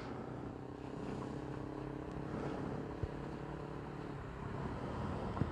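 A vehicle engine running steadily, a low even hum, with wind rumbling on the microphone.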